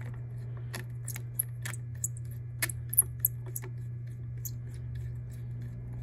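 Light clicks and taps, about eight of them over the first three and a half seconds, from the Zoeller M53 sump pump's switch housing being handled and worked apart. A steady low hum runs underneath.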